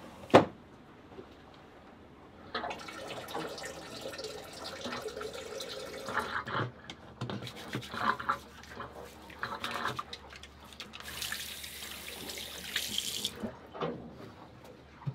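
Water running from a small sink tap and splashing over hands being washed, starting about two and a half seconds in and stopping shortly before the end, hissing harder for the last couple of seconds before it stops. A single sharp knock near the start is the loudest sound.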